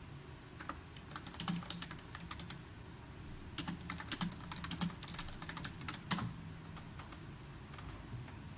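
Typing on a computer keyboard: two quick runs of key clicks, with a louder stroke about six seconds in.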